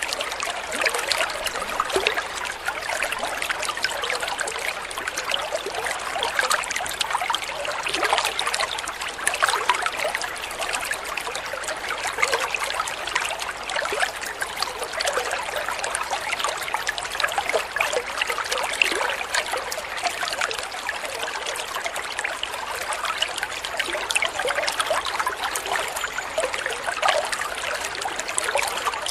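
Flowing water trickling steadily, an even, unbroken patter of small splashes.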